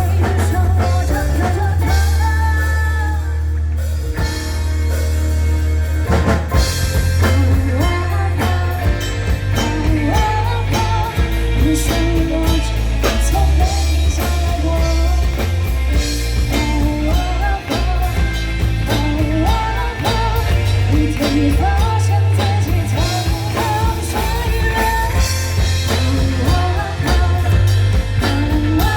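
Rock song with singing, guitar and drums, the drums and band coming in fuller about six seconds in.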